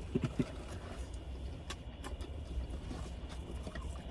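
People eating Big Macs and fries fast: faint chewing and food-handling clicks, with a couple of short low sounds near the start, over a steady low rumble.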